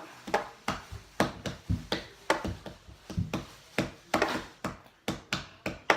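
A rapid, irregular series of sharp knocks and taps, about three or four a second, from objects being handled against a hard surface.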